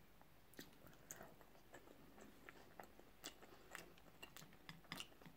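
Faint chewing and mouth sounds of a person eating sushi, with scattered small clicks.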